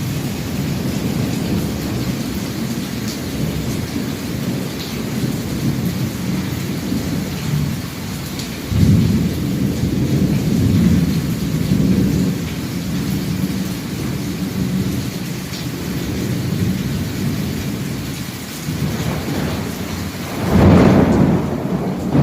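Heavy rain falling through a thunderstorm with continuous low rolling thunder. The thunder swells about nine seconds in, and a sharper, louder clap breaks near the end.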